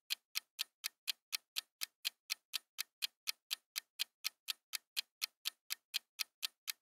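Countdown-timer clock-tick sound effect: sharp, even ticks at about four a second, running while the answer timer fills.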